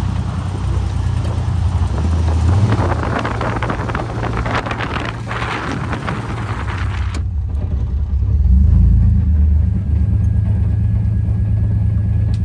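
Pickup truck driving on a dirt road: gritty tyre and gravel noise with wind over a low engine rumble. About seven seconds in, the road noise cuts off abruptly, leaving a steady low engine rumble that swells briefly a second or so later.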